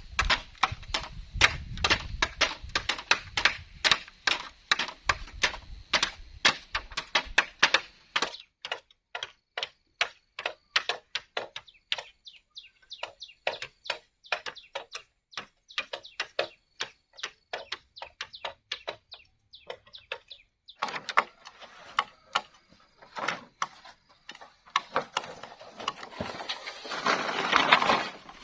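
Rapid, even knocking of a tool on bamboo or wood, about four strikes a second, pausing briefly partway through. Over the last several seconds a rougher, noisier working sound builds up and is loudest near the end.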